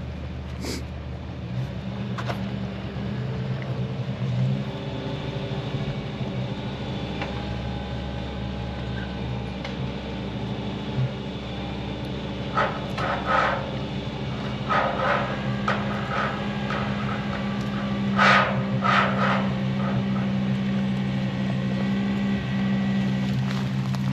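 Tow truck's engine running steadily while its winch draws the cable tight, the engine note growing a little louder toward the end. A few short sharp noises break in over the middle stretch.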